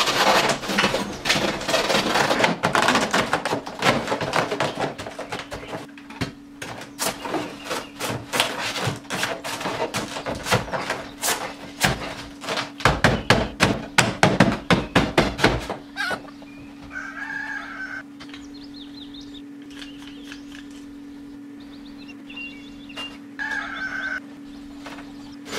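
Hands working adhesive tape and polystyrene foam: dense crackling and sharp clicks as tape is pulled and pressed onto the foam, for about the first two thirds. It then goes quieter with a couple of short squeaks, like a felt-tip marker dragged on polystyrene, over a steady low hum.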